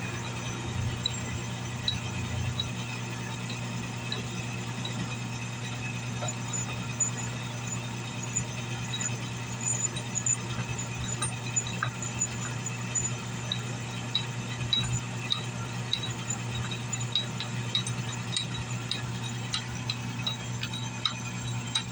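Northern Tool 8-inch drill press, converted to a mill, running with a used 3/16-inch four-flute end mill taking a shallow cut in scrap aluminum. A steady motor hum under many small sharp ticks from the cutter and chips, which come more often in the second half.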